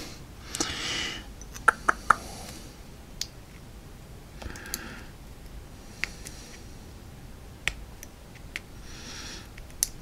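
Small sharp metal clicks from a brass padlock cylinder being worked by hand with a shim to take it apart, about eight separate clicks spread unevenly, several close together near the start. Three soft short hisses fall between them.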